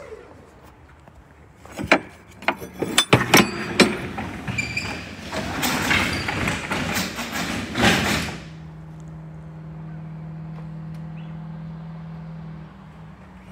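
A series of sharp knocks and clanks, then a few seconds of rushing noise, giving way about eight seconds in to a steady low hum.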